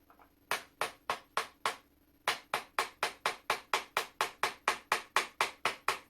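Light hammer taps driving out a rust-seized part of an old flintlock lock. Five taps, a short pause, then a steady run of about four taps a second.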